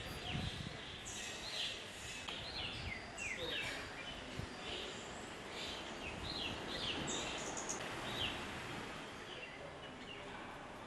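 Small birds chirping, with many short high calls sliding downward, scattered over a steady outdoor background hiss.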